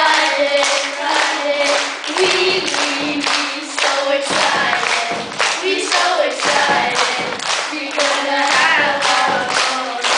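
Young voices singing a song together through a PA system, with a crowd clapping along in a steady rhythm.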